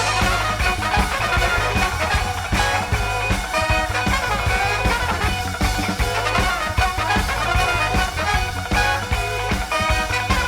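Live soul band playing an instrumental stretch of the song, horns over a driving rhythm section of guitar, bass and drums.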